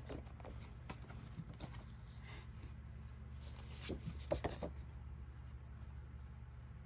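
Paper rustling and light handling noises as printed cards are picked up and turned over, with a cluster of rustles about four seconds in, over a steady low hum.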